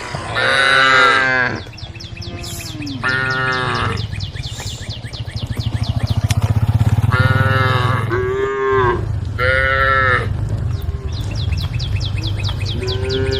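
Cows mooing repeatedly: about six drawn-out moos, each lasting roughly a second, some higher and some lower in pitch. A steady low rumble runs underneath and swells midway.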